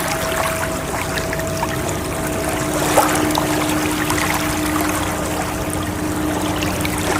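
A steady wash of moving water, with soft bell-like ringing tones over it: a higher tone fades out a little under three seconds in as a lower tone comes in and keeps ringing.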